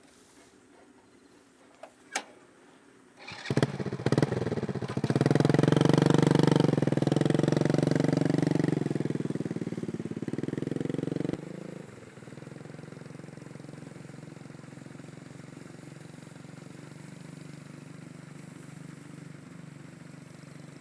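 A small engine starts about three seconds in after a couple of sharp clicks, runs loudly for several seconds, then drops about halfway through to a quieter steady running sound.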